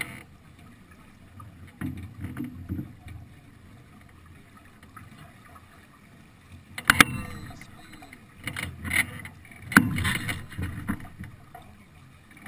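Water rushing along the hull of a sailing yacht under way, with wind noise on the microphone. Two sharp knocks come about seven and ten seconds in.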